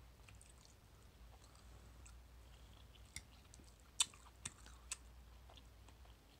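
Quiet chewing of lamb chop, with a few sharp clicks and taps between about three and five seconds in, the loudest about four seconds in, as a metal fork works the meat against the plate.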